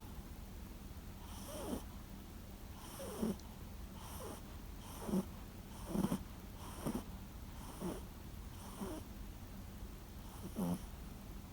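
Toy poodle snoring in its sleep: a string of short snores, about one a second.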